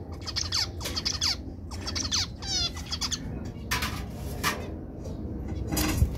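Male zebra finch singing its courtship song: a quick run of descending chirps and a rapid buzzy zig-zag note, then a few harsher single notes, with a low thump near the end.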